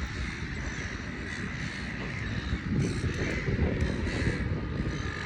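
Seagulls calling several times over a steady low rumble.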